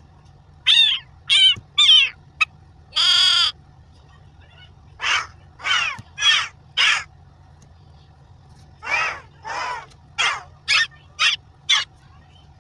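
Crow cawing: a run of harsh, short caws in uneven groups, most falling in pitch, with one longer, drawn-out caw about three seconds in.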